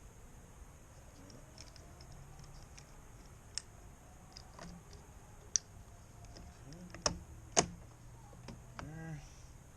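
Scattered sharp clicks and taps of hand-handled small plastic and metal parts and tools during work on a truck door's mirror wiring, the loudest two close together about two-thirds of the way in. A short pitched squeak near the end.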